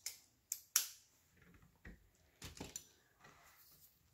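Plastic Lego pieces clicking and knocking as a wheel is pressed onto a small toy truck: three sharp clicks in the first second, then softer knocks and handling rattle a couple of seconds in.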